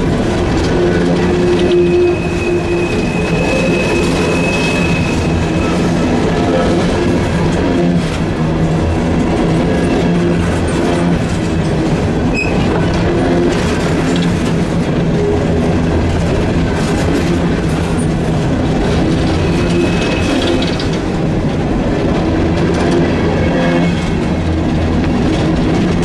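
Empty CSX steel coal hopper cars rolling past at close range: a steady rumble of wheels on rail with clicking over the rail joints, and a brief high wheel squeal a couple of seconds in and again near twenty seconds.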